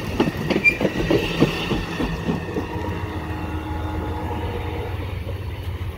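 Amtrak Superliner passenger cars rolling past at close range, their wheels clicking quickly over rail joints. The clicking stops about two and a half seconds in, leaving a steady rumble as the last car moves away.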